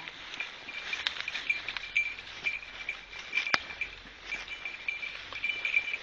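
Footsteps crunching through dry leaf litter and brush, with scattered twig snaps, the sharpest about three and a half seconds in. A high ringing tone comes and goes in short pieces throughout.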